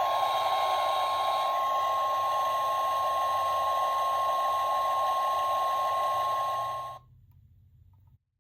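Car-sound gachapon toy's tiny speaker playing an electronic sound effect: one steady high tone over a hiss, cutting off suddenly about seven seconds in.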